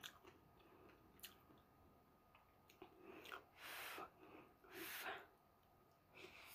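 A person slurping and chewing pancit noodles eaten with chopsticks: a few small clicks early, then two longer slurps about three and a half and five seconds in.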